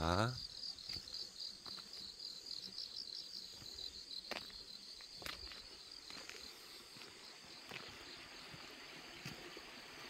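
Grass insects, crickets among them, chirping in a steady, high, pulsing trill, with a few faint clicks.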